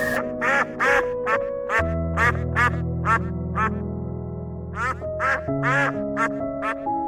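A duck quacking in a quick series of short calls, with a brief pause about four seconds in, over soft background music with sustained notes.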